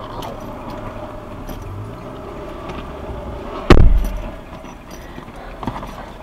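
A single heavy thump inside a stationary car about three and a half seconds in, over a steady low hum and a few light clicks.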